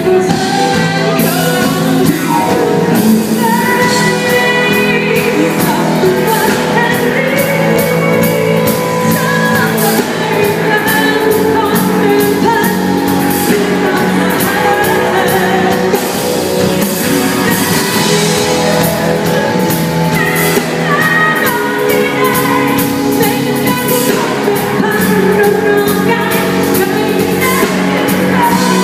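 Live pop band playing with drums while a female singer sings a melody, amplified through a PA in a large hall during a sound check.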